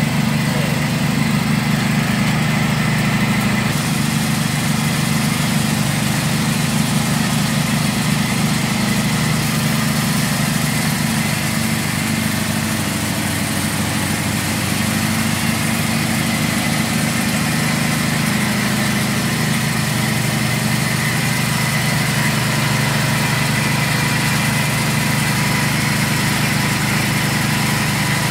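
Motorised grinder running with a steady hum while it grinds fried peanuts, dried red chillies and garlic into peanut-sauce paste.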